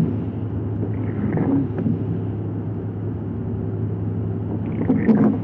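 Vehicle engine running steadily while driving, a low even drone, with brief louder noises about a second and a half in and again near the end.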